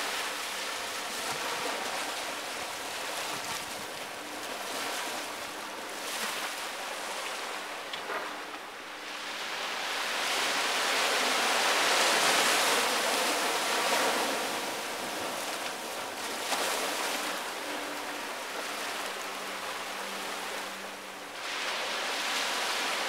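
Small waves breaking and washing up the sand at the water's edge, the surf swelling and fading in repeated surges, with the biggest wave breaking about halfway through.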